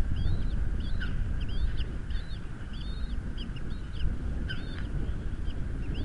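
Bald eagle chicks peeping: a run of short, high, curved chirps, two or three a second, over a steady low rumble of wind on the microphone.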